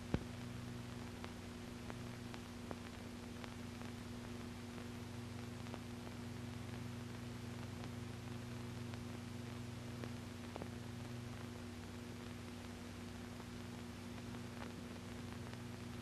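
Steady low hum and hiss with a few faint scattered clicks: the background noise of an old film soundtrack.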